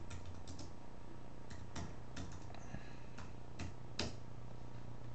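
Computer keyboard typing and clicking: about a dozen irregular taps while a player's name is searched online, the loudest about four seconds in, over a steady low hum.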